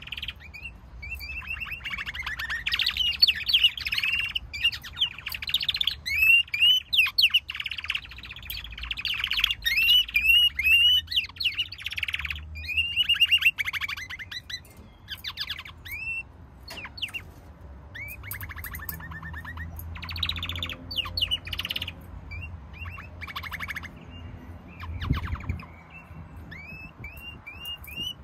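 Caged domestic canaries singing: long rapid trills mixed with quick rising chirps, dense and almost unbroken for the first dozen seconds, then coming in shorter phrases with pauses.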